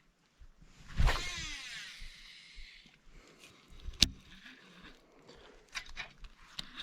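Baitcasting reel on a cast: the spool whirs with a falling pitch for about a second and a half as line pays out, its brake still set heavy for wind. A single sharp click follows a few seconds later.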